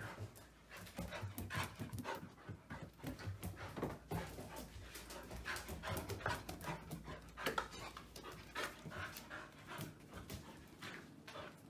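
Old English Sheepdog puppy panting in quick irregular breaths while it runs and plays on a wooden floor, with short scuffs and clicks mixed in.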